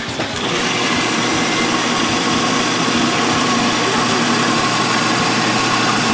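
Gryphon Diamond Band Saw running, its water-cooled diamond blade cutting into a coral frag: a steady whirring, cutting noise that steps up in loudness about half a second in as the blade bites into the coral.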